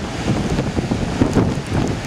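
Hurricane wind gusting hard across the microphone, a loud, uneven rumbling buffet.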